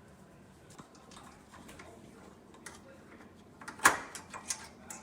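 Small clicks and taps of a plastic microwave door handle and its screws being handled and fitted against the door: a few light clicks, then one sharp click about four seconds in, followed by several quicker clicks.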